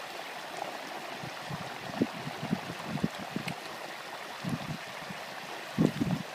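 Hot oil in a turkey fryer bubbling and hissing steadily as a turkey is lowered into it, with several low thumps, the loudest near the end.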